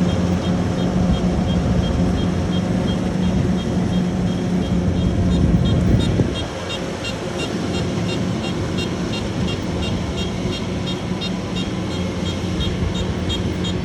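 Rice combine harvester's engine and threshing machinery running steadily with a low hum, dropping somewhat in level about six seconds in. A fast, regular high ticking joins in from about eight seconds.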